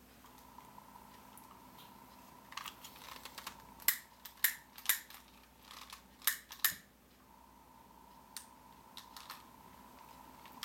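Model flame-eater (vacuum) engine and its belt-driven generator and pump running with a faint steady whine, broken by a cluster of sharp, irregular clicks in the middle, the loudest about four seconds in.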